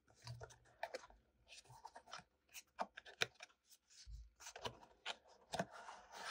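Small cardboard box being opened by hand: faint scattered scrapes, rustles and light clicks of card as a flap is folded back and the inner tray slides out.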